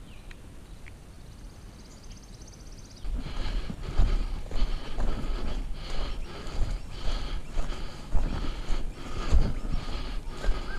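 Footsteps of someone walking through long grass and scrub, starting suddenly about three seconds in at roughly two steps a second, with leaves and branches brushing past. Before the walking starts there is only a faint high trill.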